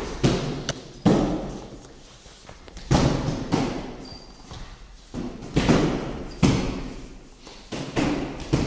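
Punches landing on hand-held strike pads: sharp slaps and thuds at irregular intervals, roughly one a second, each with a short echo.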